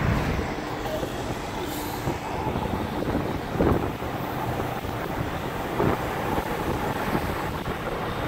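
Steady wind and road noise inside a moving car driven with the windows and sunroof open: a rush of air buffeting the cabin over the hum of the tyres.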